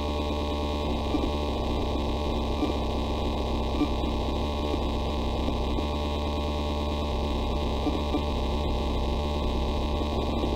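Steady, muffled electrical-style hum with many overtones and faint crackles here and there.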